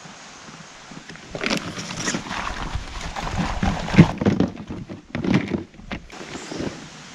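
Gear being handled close to the microphone: fabric rustling with a string of knocks and thumps, starting about a second in. The loudest thump comes about four seconds in.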